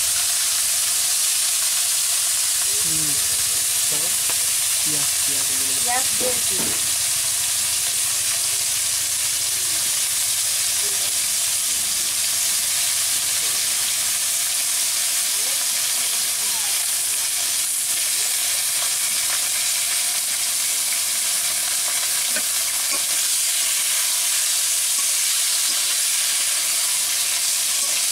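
Freshly added ridge gourd and potato pieces sizzling in hot oil in a wok over a wood fire: a steady frying hiss.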